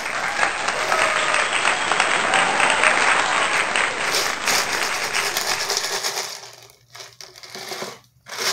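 Applause: dense, loud clapping for about six seconds, fading away near the end.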